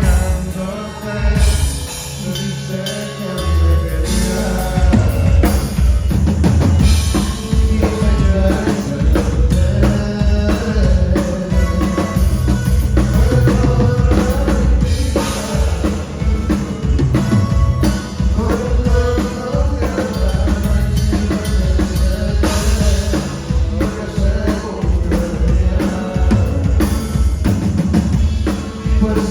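A band playing a song at a sound check: a drum kit with kick and snare keeps a steady beat over bass and melodic instruments.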